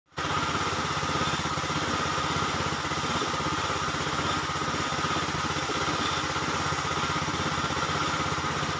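Paint spray gun spraying steadily, a broad air hiss over the rapid, even chug of a running motor.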